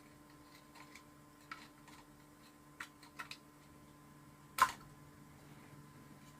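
A few faint, scattered clicks and taps from handling a small plastic clock case and its wiring, with one sharper click about four and a half seconds in, over a faint steady hum.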